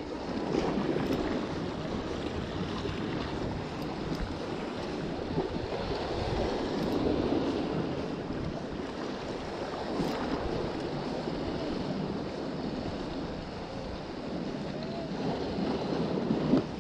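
Sea waves washing on the shore, with wind buffeting the microphone; a steady rushing that swells and eases.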